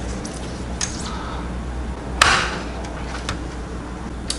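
A few light clicks and one sharper knock about two seconds in from hands handling an open desktop PC case and its parts, over a steady low hum.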